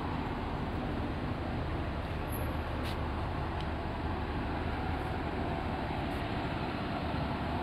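Steady outdoor city background noise: a continuous low rush of traffic, with a faint click or two about three seconds in.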